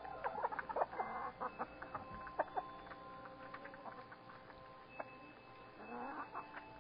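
Backyard hens clucking: a quick run of short clucks in the first few seconds, then a rising call near the end.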